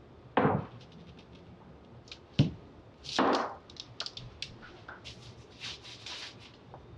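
A metal baking sheet set down on a wooden table: two sharp knocks and a short sliding rub. These are followed by a run of light clicks and scrapes as a spatula lifts baked cookies off the parchment.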